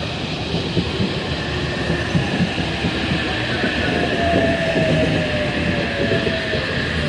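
Sydney Trains H-set (OSCAR) electric multiple unit pulling into the platform, wheels rumbling and knocking over the rails, with a faint whine that falls slightly in pitch as the train slows.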